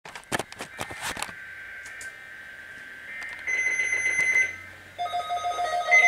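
NOAA weather radios receiving the digital alert header of a weekly test: two raspy data bursts about a second long, with a pause between, and several sharp clicks near the start. About five seconds in, a different set of steady electronic tones starts and grows louder.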